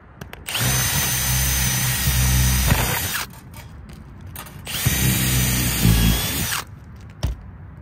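Cordless drill boring a pilot hole through asphalt shingles and roof decking, run twice for a couple of seconds each with a steady motor whine. The hole goes into the rafter, marking a good spot for an L-foot mount.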